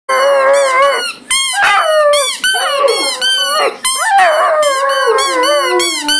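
Several Irish wolfhound puppies howling together: drawn-out, gliding howls overlapping with quick, high-pitched yelping cries, broken by a few brief pauses.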